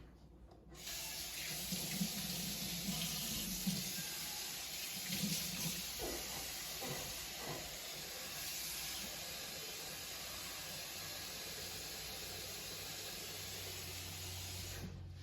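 Kitchen tap running water into a cooking pot. The steady splashing starts about a second in and cuts off near the end as the tap is shut.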